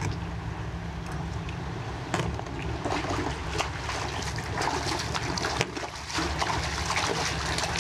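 Water splashing and churning as a hooked sheepshead thrashes near the surface beside a kayak, with many short sharp splashes.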